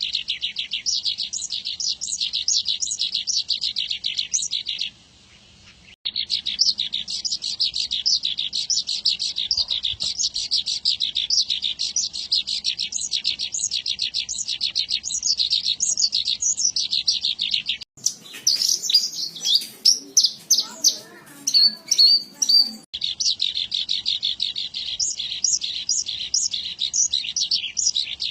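Javan bush lark (branjangan) singing a fast, unbroken stream of high chirping and trilling notes, with a brief pause about five seconds in.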